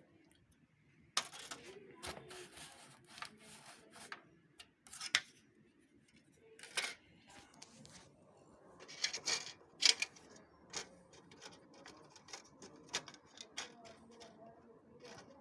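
Irregular clicks and clatter of small plastic and metal parts being handled and snapped into place in a Xerox WorkCentre 5855 copier's document feeder, with the loudest knocks about a second in, near five seconds and around nine to ten seconds.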